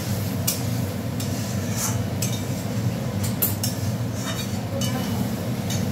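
Metal kitchen utensils clinking and knocking against cookware, about eight short sharp strikes at irregular intervals, over a steady low hum.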